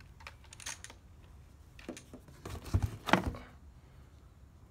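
Handling noises from unpacking pressure-washer parts: scattered light plastic clicks and rustles, with a few heavier knocks and thuds about three seconds in.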